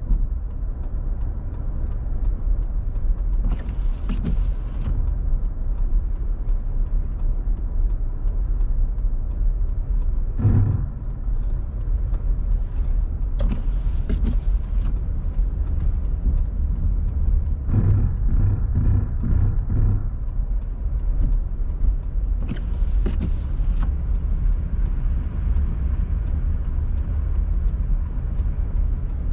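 A car driving along a road: steady low rumble of tyres and engine, with a few short louder noises along the way.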